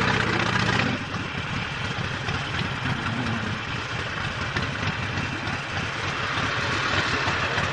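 Harley-Davidson Sportster 48's air-cooled V-twin engine running: a steady pitched note for about the first second, then a rapid uneven beat of firing pulses under a steady hiss.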